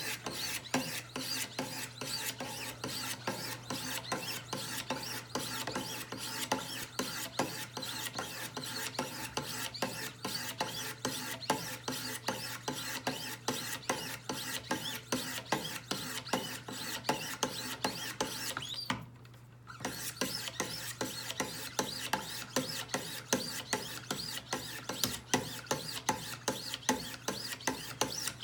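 Wicked Edge diamond sharpening stones rasping along both sides of a knife edge clamped in a guided-angle sharpener, in a quick, steady rhythm of strokes with a pause of about a second about two-thirds of the way through. Full-length finishing passes, stone held flat against the bevel.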